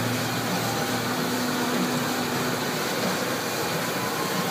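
Offset printing press running: a steady, even mechanical noise with a low hum that does not change.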